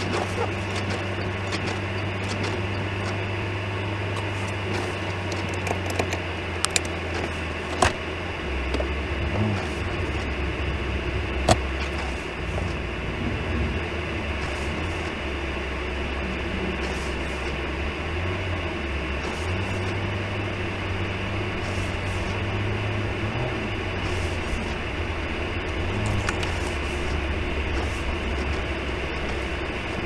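A car's engine heard from inside the cabin as the car moves off slowly: a steady low hum that drops in pitch about eight seconds in, over a constant hiss, with a few sharp clicks between about six and twelve seconds in.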